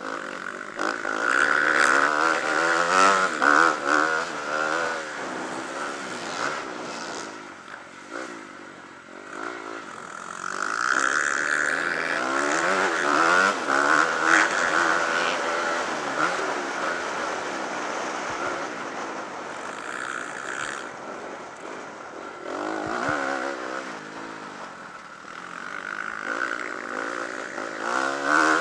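Motocross bike engine heard from onboard, revving up and down with the throttle. It is loudest in long pulls near the start, about a third of the way in, and again near the end.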